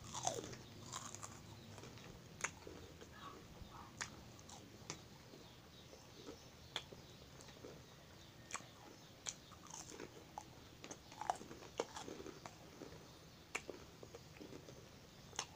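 Fried fish crackers being bitten and chewed: irregular, sharp, crisp crunches, roughly one a second.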